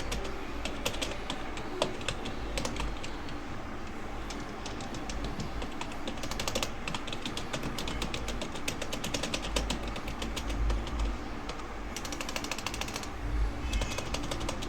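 Computer keyboard typed on at speed: rapid key clicks in quick runs with short pauses between, over a steady low hum.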